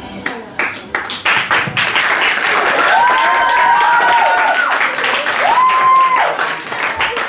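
An audience clapping and cheering. Scattered claps at first build into full applause within about two seconds, and two drawn-out high whoops rise and fall over it in the middle.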